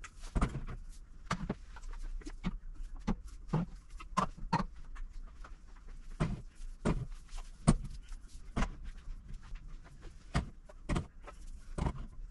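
Metal food cans set down one after another on wire pantry shelving: a string of irregular clinks and knocks, one or two a second.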